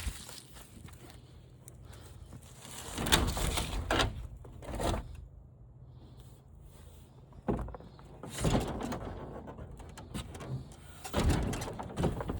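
Scraping, sliding and knocking of flat-screen TV parts being handled and pulled apart by hand, in several separate bursts over a steady low hum.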